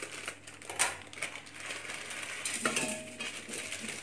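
Scissors snipping open a plastic Maggi noodle packet, with the wrapper crinkling and a sharp click about a second in.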